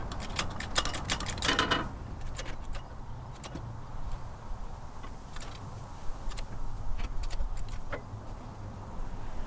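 Light metallic clicks and rattles as a hydraulic transmission jack is worked to raise a heavy steel skid plate up under a truck, lining up the bolt holes. There is a quick run of clicks in the first two seconds, then single clinks now and then.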